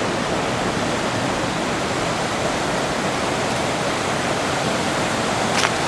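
Steady rush of a waterfall and river in full flow, with one brief click near the end.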